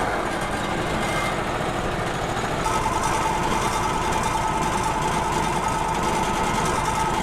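Wood-Mizer LT35 band sawmill's engine running steadily. About three seconds in, a steady higher whine joins it.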